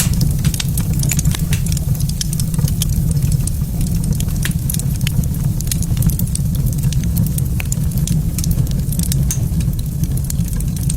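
Wood fire burning in a fireplace, crackling with many scattered sharp pops over a steady low rumble.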